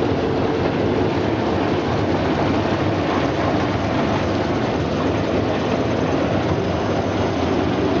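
Potato washing and peeling machine running: its motor-driven brush rollers turn the potatoes under water spray, making a steady mechanical running noise mixed with spraying water and the potatoes tumbling.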